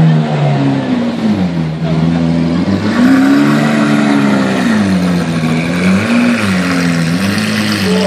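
Lamborghini Aventador's 6.5-litre V12 engine at low speed, blipped up and down in pitch about four times.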